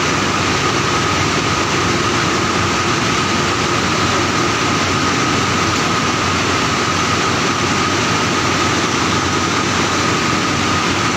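LMW finisher draw frame running steadily: continuous loud machine noise with a constant whine.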